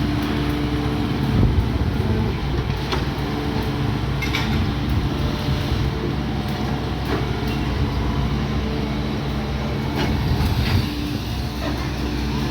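Hydraulic excavator's diesel engine running steadily under load, with a few scattered knocks.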